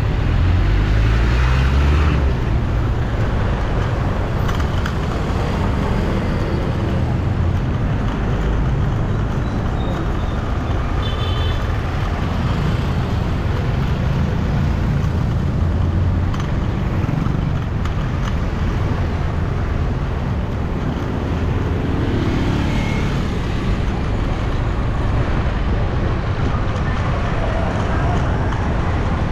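Busy street traffic: motor vehicle engines running and passing in a steady din, with one engine rising in pitch as it speeds up near the start.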